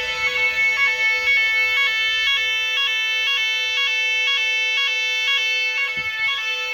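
Nugelec type 4 fire alarm sounding its general evacuation signal: a loud electronic alarm that switches back and forth between two pitches several times a second over a steady underlying tone.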